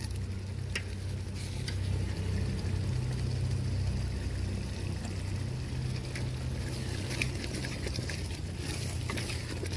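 Masala sizzling as it fries in a brass pot over an open flame, with scattered crackles and clicks and a steady low rumble underneath.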